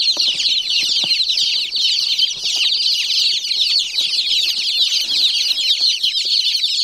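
A boxful of baby chicks peeping together in a dense, unbroken chorus of high, short chirps. Faint rustles and light knocks come from the cardboard box and the shavings as the chicks are lifted out.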